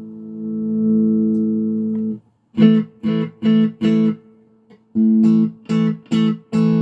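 Electric guitar played through an Aklot Dyna compressor pedal set to fast attack. A held chord rings for about two seconds and is cut off. Then come two runs of short, evenly spaced chord stabs, four and then five.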